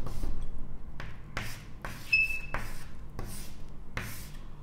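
Chalk writing on a chalkboard: a run of short scratchy strokes, one of them with a brief high squeak about two seconds in.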